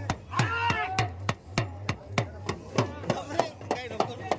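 A drum beaten in a steady, fast rhythm of sharp strokes, about three a second, with people's voices calling out over it.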